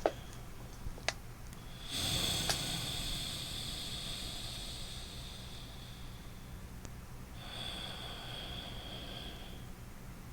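A man breathing deliberately and loudly through his nose: one long breath of about four seconds starting about two seconds in, then a shorter breath of about two seconds after a brief pause, with a few faint clicks.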